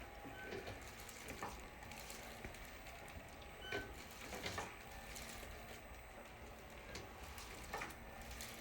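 Chiropractic flexion-distraction table working under a patient's lower back: a faint steady mechanical sound with a few soft clicks spread through it.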